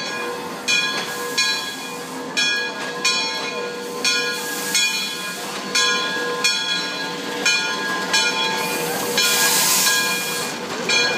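Lima Shay geared steam locomotive rolling slowly past, its brass bell rung steadily in strokes a little under a second apart over hissing steam. A louder rush of steam hiss comes about nine seconds in.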